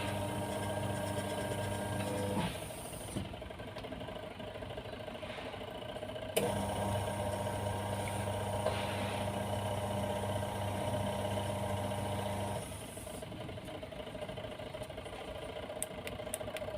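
Washing machine's electric motor humming steadily, switching off about two seconds in, coming back on with a click about six seconds in, cutting out again about thirteen seconds in and starting once more at the end. The repairer takes the weak spin for a worn fan belt.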